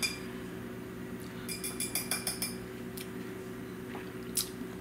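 Metal cutlery clinking, a quick cluster of ringing clinks about a second and a half in, then a single sharp tap near the end, over a faint steady low hum.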